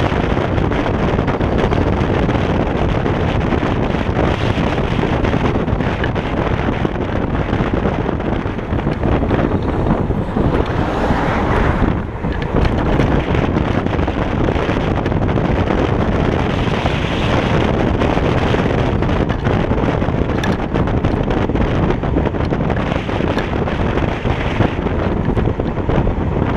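Steady wind noise buffeting a GoPro's microphone, mixed with road and tyre rumble, from a Kaabo Wolf King GT electric scooter riding along at speed.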